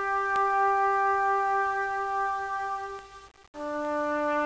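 Background music: a long held note that breaks off briefly about three seconds in, after which a new, lower note starts.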